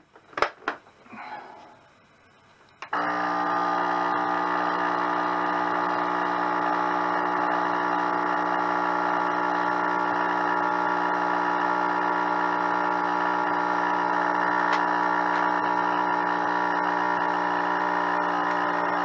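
A few clicks as the lid of a countertop vacuum sealer is pressed shut, then about three seconds in its vacuum pump starts and runs steadily, drawing the air out of the bag.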